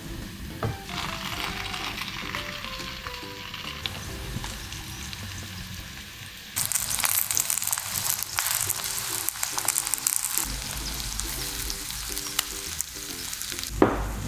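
Egg-and-spring-onion batter sizzling in hot oil over frying potato slices in a nonstick pan, while a spatula scrapes and spreads it. The sizzle turns much louder about six and a half seconds in.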